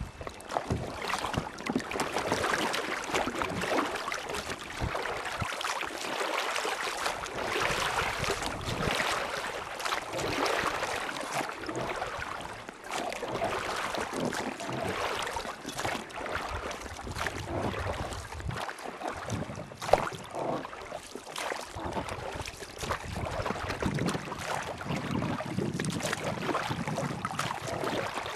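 Rushing river water, a steady dense noise with small crackles and splashes throughout.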